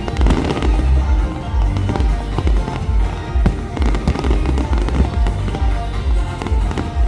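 Fireworks bursting in rapid succession, a dense run of bangs and crackles over a deep rumble, with show music playing loudly alongside.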